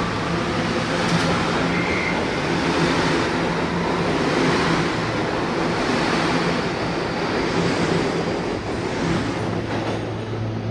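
R211A subway car running at speed, a steady loud rumble of wheels on rail with a low motor hum. Near the end the hum drops to a lower pitch.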